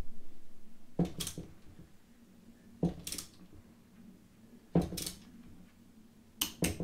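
Ratchet wrench clicking in short metallic bursts about every two seconds, with a quick double click near the end, as the cylinder bolts of a two-stroke motorcycle engine are tightened to torque.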